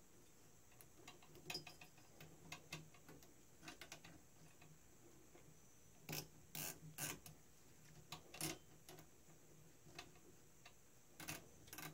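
Faint, scattered clicks and taps of a rubber GT2 timing belt being handled and fed around the pulleys on a 3D printer's metal frame, a little louder about six to seven seconds in and again near the end.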